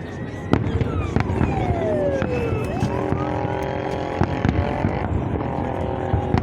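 Fireworks salute going off: scattered sharp bangs and pops, with whistling tones gliding downward in the first few seconds, then a steady held multi-note tone from about three seconds in.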